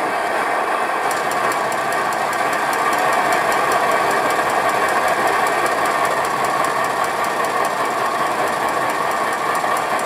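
Antique Essex hot-air (Stirling) engine running steadily on a propane torch flame: the torch hisses, and the engine makes a regular ticking several times a second.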